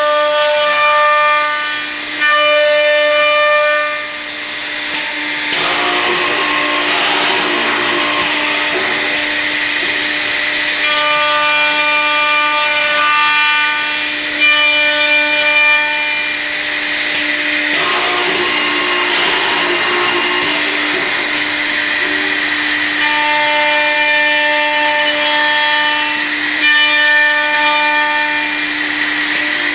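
Accu-Systems cup hinge drilling and routing machine at work: its spindles whine in three spells, at the start, around the middle and near the end, with noisier stretches of bits cutting wood between them, over a steady machine hum.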